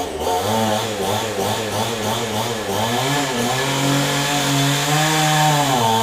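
Chainsaw engine running, its pitch wavering up and down as it is worked. It dips about halfway through, climbs and holds high, then drops again just at the end.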